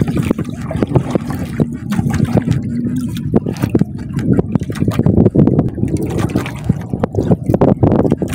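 Water sloshing and lapping against the hull of a small outrigger fishing boat, with irregular short knocks and rustles through it.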